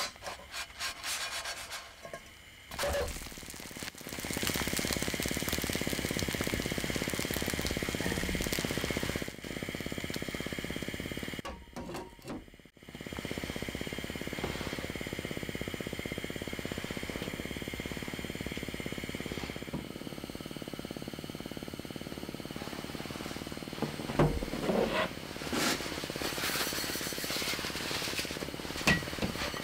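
Electric hand mixer beating softened butter in a bowl, running steadily, stopping briefly about twelve seconds in, then running again. Irregular knocks and clatter come near the end.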